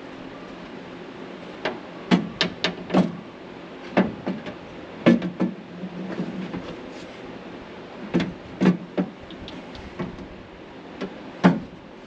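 Irregular metal clunks and knocks from an aluminium toolbox and hand tools being handled, in clusters of quick strikes with the loudest one near the end, over the steady hum of a garage fan.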